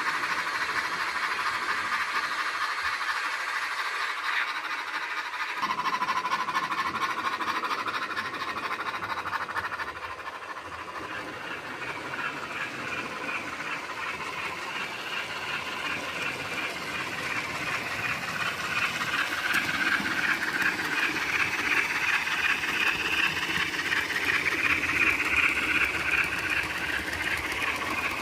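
Model steam locomotive's DCC sound decoder playing steam chuffs and hiss through its small onboard speaker, with the rattle of the model's wheels on the track. It grows louder over the second half as the locomotive comes closer.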